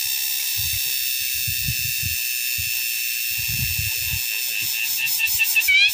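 Insects calling in a steady, high-pitched drone, cicada-like, with a thin steadier tone beneath it. A few soft low rumbles come and go under the drone.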